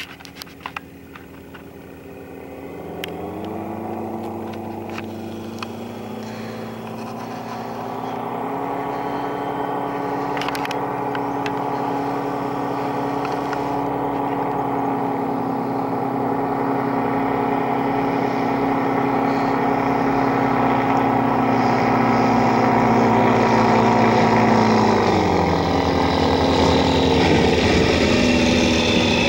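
Searey amphibious light aircraft's engine and pusher propeller running steadily as the plane skims across the water on its hull, growing louder as it approaches. The pitch steps up a few seconds in and drops near the end.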